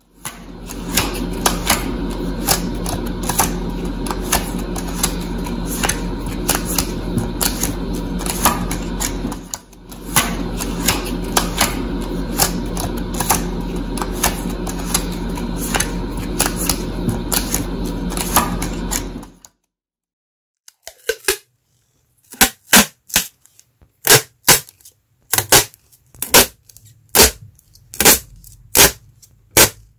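Machine-like clatter: a dense run of fast clicks over a steady hum, with a brief dip partway through, stopping after about twenty seconds. Then a string of separate sharp clicks follows at irregular intervals.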